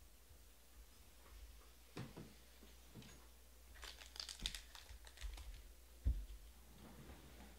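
Sealed trading-card packs handled by hand: a few light taps, a short burst of wrapper crinkling about four seconds in as a pack is taken from the stack, and a thump about six seconds in as a pack is set down on the table.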